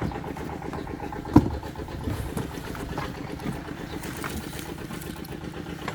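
A small engine running steadily at low revs, with one sharp knock about a second and a half in.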